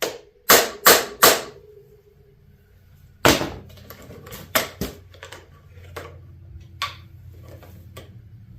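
Sharp knocks of a hand tool working at a very tight fastener on a motorcycle handlebar. Four loud strikes come in quick succession at the start, then a handful of lighter, spaced-out knocks follow. A faint steady hum comes in about three seconds in.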